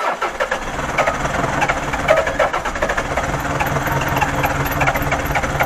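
Toyota 4S-FE four-cylinder petrol engine turning over and struggling to run, a fast rattle over a low hum. It is running on only three cylinders, which the owners fear means the engine is finished.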